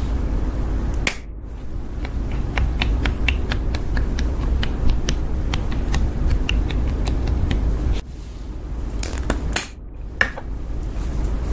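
Makeup applicator wand dabbing into clear slime, making a run of small sharp sticky clicks, several a second, over a steady low rumble.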